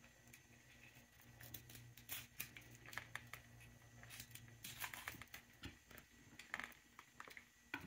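Faint knife-work as a blade slits open the belly of a shad on a wooden cutting board: scattered small clicks and scrapes, busiest in the middle, over a faint low hum.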